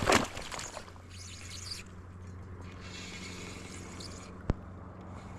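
Water splashing at the shore's edge, then faint trickling and dripping, with a single sharp click about four and a half seconds in.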